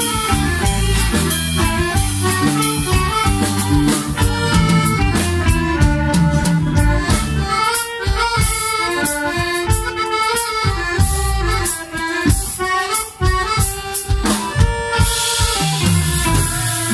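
Live band playing an instrumental passage, an accordion carrying the melody over guitars and drum kit. Past the middle the low end thins for a few seconds to sharp rhythmic hits, then fills out again.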